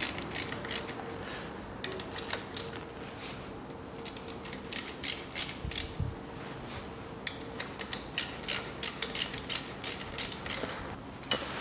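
Ratchet wrench clicking in short bursts, with pauses between, while tightening the bolts of an engine's water pump.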